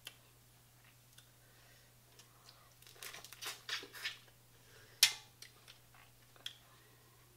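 Eating sounds of a person eating seafood from the boil with the fingers: a quick run of sharp smacking and chewing clicks about three seconds in, then one sharp, loud click about five seconds in, with faint clicks between.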